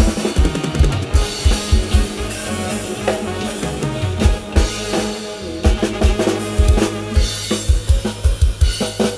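Loud drum-kit beat with bass and snare hits over held bass notes, played through a rot hae sound truck's loudspeaker stack: an instrumental drum break without vocals.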